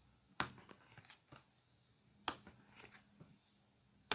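A handful of faint, sharp little clicks and taps, spaced irregularly, in a quiet small room.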